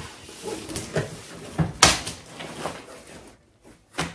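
Handling things in a wardrobe: a few short knocks and rustles, with one sharp knock about two seconds in.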